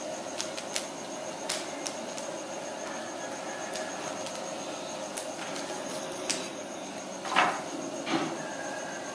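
Open wood fire crackling: scattered sharp snaps over a steady hiss and faint hum, with two louder pops near the end.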